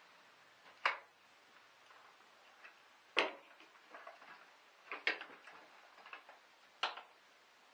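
Sharp clicks and knocks of parts being handled in a car's engine bay during a battery replacement: four louder clicks a couple of seconds apart, with fainter ticks between.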